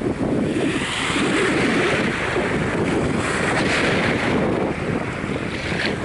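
Small ocean waves washing over the sand at the water's edge, a steady surf hiss that swells twice and eases off, with wind buffeting the microphone underneath.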